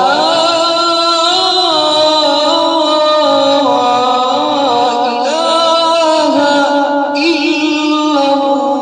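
A man singing the adhan, the Islamic call to prayer, into a microphone: long drawn-out notes that bend and waver in pitch, one phrase running on into the next.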